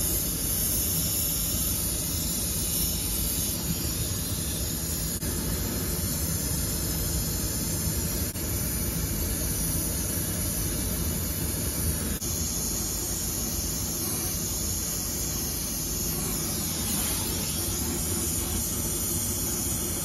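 Oxy-fuel brazing torch flame hissing steadily while a new copper-piped thermostatic expansion valve is brazed into a refrigerant line.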